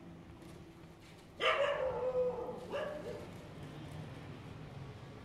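A dog barking twice, about a second and a half in and again a second later, the first bark drawn out.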